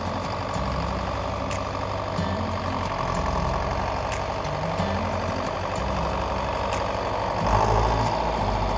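Farm tractor engine running steadily while driving down the road, with light rattling clicks throughout; it gets louder for a moment near the end.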